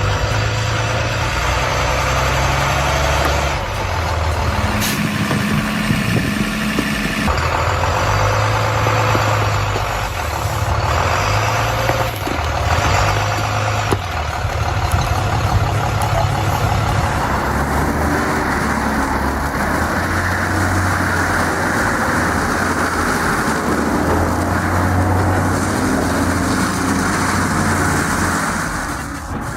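Heavy vehicle engine running steadily. About 17 seconds in, the higher part of the sound drops away.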